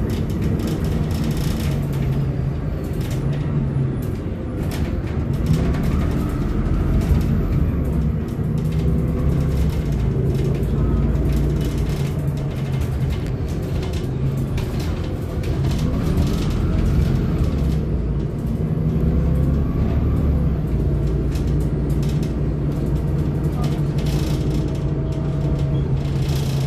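Volvo B7RLE city bus heard from inside the passenger cabin while driving: the diesel engine's pitch rises and falls several times as it accelerates and shifts gear, with steady stretches between, over road rumble and short rattles from the interior.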